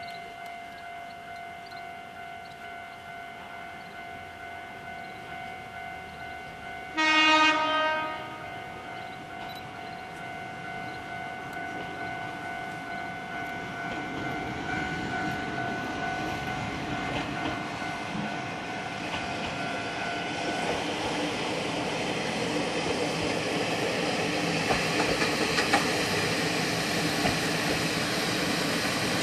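Kominato Railway KiHa 200 diesel railcar sounding one horn blast of about a second, then its diesel engine and wheels on the rails growing steadily louder as it approaches.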